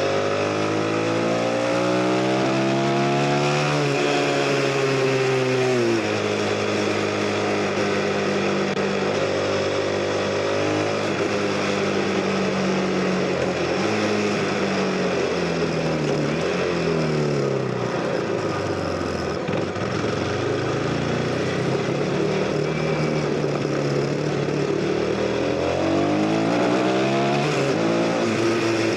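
CF Moto 250NK's single-cylinder engine, heard on a ride with wind rushing past: it climbs in pitch and drops back twice early on as it shifts up through the gears. Later it falls away as the rider eases off, then picks up and rises again, with one more rise and drop near the end.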